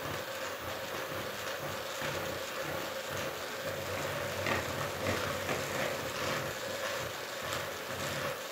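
Electric hand mixer running steadily, its beaters whirring through a thick brownie batter as flour and cocoa are beaten in until combined.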